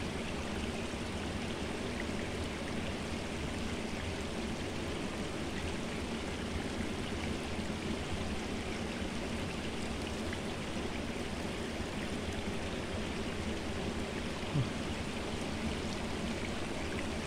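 Small stream of muddy water running steadily over rocks and gravel.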